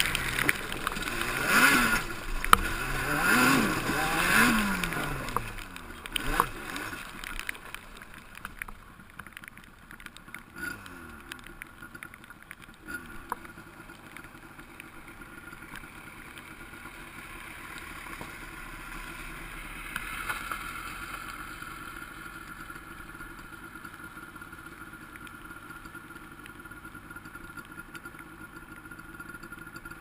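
Quad bike engine revving up and down several times in the first few seconds, then slowing and settling into a low, steady idle for the rest.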